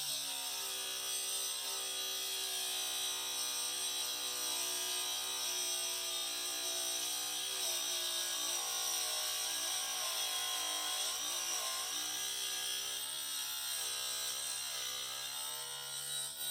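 Sealey SMS2008 bench drill bit sharpener's 80 W motor running steadily with a hissing, whining tone while a drill bit is ground on its grindstone; the pitch dips and wavers about halfway through, then steadies.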